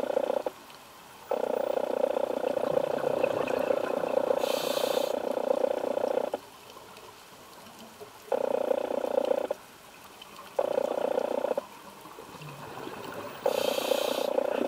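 A scuba diver's breathing through a regulator underwater: bubbling exhalations in runs of one to five seconds, five in all, with quieter inhalations between them and a short hiss twice.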